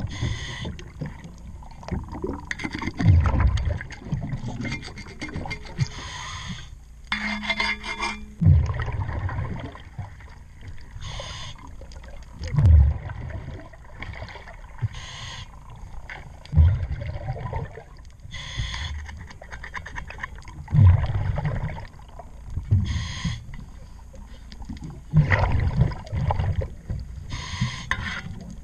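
Scuba diver breathing through a regulator underwater: a hiss on each inhale and a rumble of exhaust bubbles on each exhale, in a cycle of about four seconds. Lighter rubbing and scraping from the hull and propeller being wiped clean runs between the breaths.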